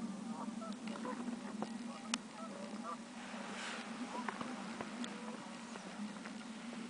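Thin lake ice singing as it expands and contracts in the morning sun: short wavering chirps and sharp pings and clicks across the ice sheet, with a brief hissing rush about halfway through, over a steady low hum.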